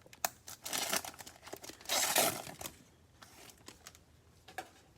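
Trading cards being handled and flipped through: crinkling and sliding rustles with small clicks, the loudest rustle about two seconds in.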